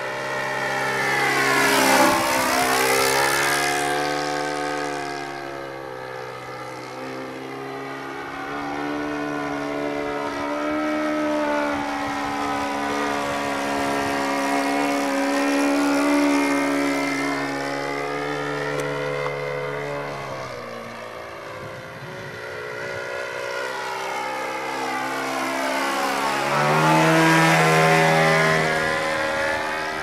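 Radio-controlled Yak 54 model aeroplane flying, its O.S. FS-120 Surpass III four-stroke glow engine, freshly fitted with new bearings, running steadily. The engine note swings up and down in pitch and loudness as the plane manoeuvres, loudest about two seconds in and again near the end.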